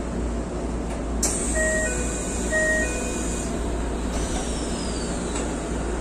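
Keikyu Main Line commuter train standing at a station with a steady low hum. About a second in, air hisses out suddenly and fades, while a short two-note electronic chime sounds twice; later a faint whine falls in pitch and ends at a click.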